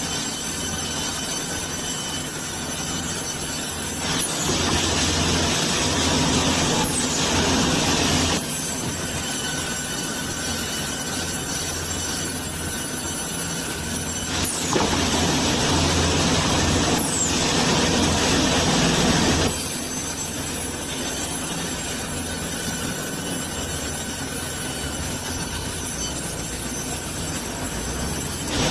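Band sawmill running and cutting through a large log: a steady machine noise with a thin high whine, growing louder in two stretches of several seconds each as the blade works through the wood.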